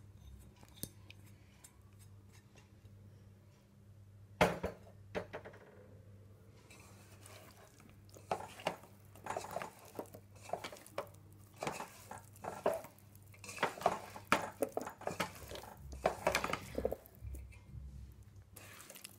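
Potato strips being mixed by hand in flour batter in a stainless steel bowl: irregular wet squishing and scraping against the bowl, busiest in the second half. A single sharp knock about four seconds in is the loudest sound, over a faint low steady hum.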